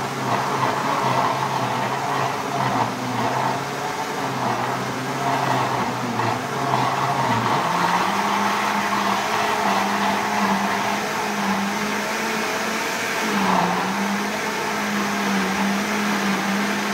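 Countertop blender running, mixing a liquid cornmeal cake batter as cornmeal is poured in. Its steady motor hum steps up in pitch about eight seconds in as the speed knob is turned up, then sags briefly a few seconds later before settling again.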